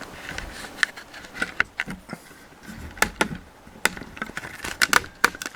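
Sharp, irregular clicks and knocks from an HGU-55/P flight helmet being handled and fitted: hard shell, straps and fittings knocking together.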